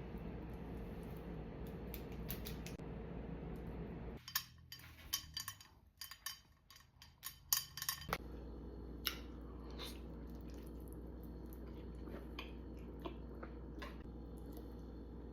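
Scattered sharp clicks and taps of eating utensils against a dish, heard close up, over a low steady hum. The clicks come thickest about four to eight seconds in, while the hum drops out.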